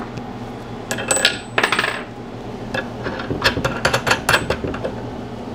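Light metallic clinks of steel washers and nuts being handled on the anchor bolts. One group comes about a second in, with a brief ringing, and a quicker run of clinks follows about three and a half to four and a half seconds in.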